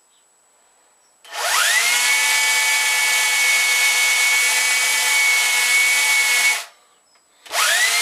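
Electric drill boring into wood: the motor spins up with a quick rising whine about a second in, runs at a steady pitch for about five seconds, then stops. It starts up again briefly just before the end.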